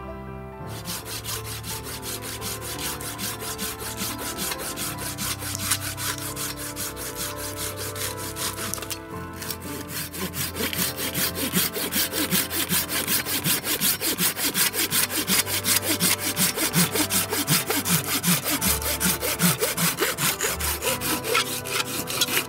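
Hand saw cutting through wood in quick, even strokes, about two a second. The sawing breaks briefly about nine seconds in and is louder after the break, with soft background music underneath.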